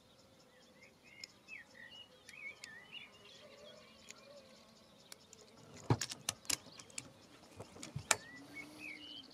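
Small birds chirping in short, quick notes. About six seconds in comes a quick run of three or four sharp clicks, the loudest sounds here, and a single click follows about two seconds later.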